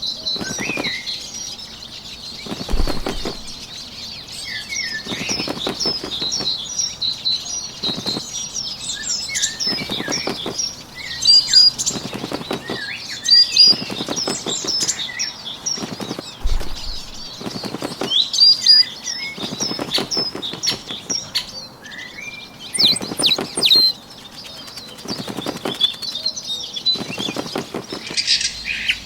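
Bursts of rapid bird wingbeats, a flurry of flapping roughly every two seconds, over continuous high-pitched birdsong chirps in a nature ambience.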